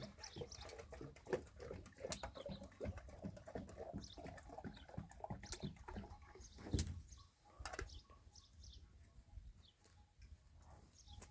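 Small birds chirping, with scattered clicks and knocks and one louder knock about two-thirds of the way through.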